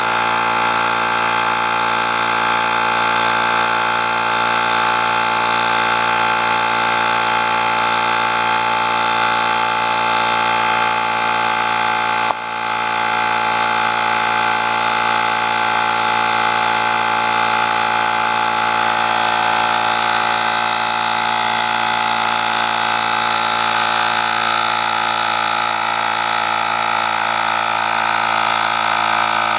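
Cordless portable tyre inflator's electric air compressor running steadily with a dense, buzzing machine hum, dipping momentarily about twelve seconds in.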